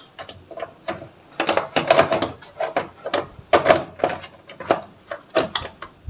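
Plastic parts of a top-loading washing machine's control-panel housing knocking and clattering as they are handled and fitted: a quick series of sharp knocks in several clusters.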